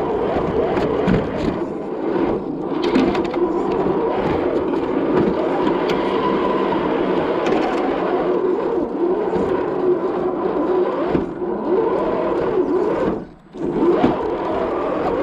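Axial SCX10 II RC crawler's electric motor and gear drivetrain whining, the pitch rising and falling with the throttle, with tyres and chassis scraping over the ground. The motor cuts out briefly about 13 seconds in, then picks up again.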